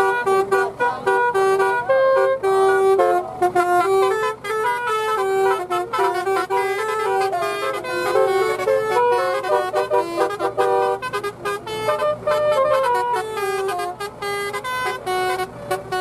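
Basuri-type telolet horn playing a quick melody, its notes stepping up and down several times a second with short gaps between some of them.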